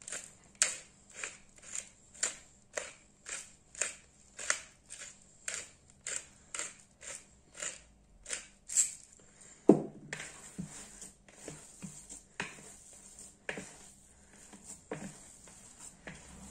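Hand-twisted pepper mill grinding peppercorns, about two crisp grinding strokes a second for roughly nine seconds. Just before ten seconds in comes one loud thump, followed by quieter irregular knocks and rustles.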